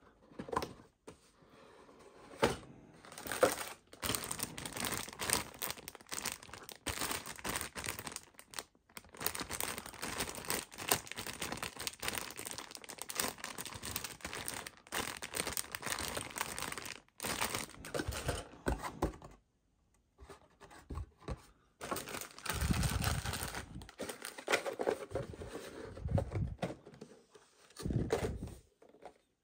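Plastic bag of model-kit parts crinkling and tearing as it is handled and opened, with the cardboard box being handled; after a short pause, cardboard boxes are shuffled and set down with dull thumps near the end.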